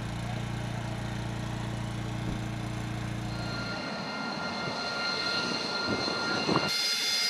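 Harrier II jump jet's engine with a steady high whine over a rushing noise as the jet lifts off and climbs in vertical flight, after a steady low engine drone in the first few seconds.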